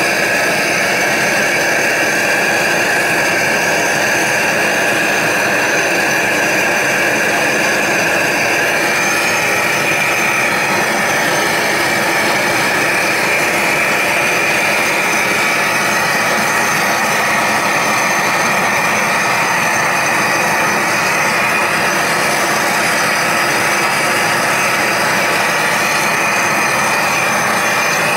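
Gas blowtorch flame burning steadily as it heats a copper model boiler shell for silver soldering. Its tone shifts slightly about nine seconds in.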